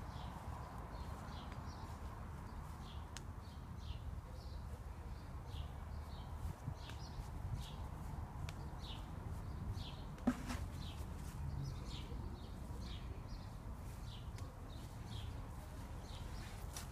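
Footsteps of someone walking through a garden, about two steps a second, over a low rumble. One sharp knock about ten seconds in.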